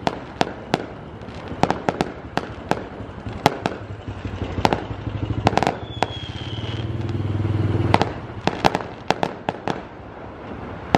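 Fireworks going off: an irregular string of sharp cracks and bangs, several close together at times. A vehicle's low engine hum builds underneath from about five seconds in and stops about three seconds later.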